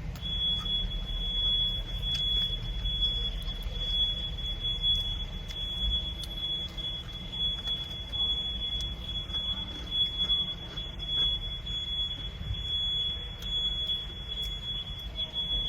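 Someone chewing a crunchy Nature Valley peanut butter biscuit, under a steady high-pitched electronic tone that holds throughout.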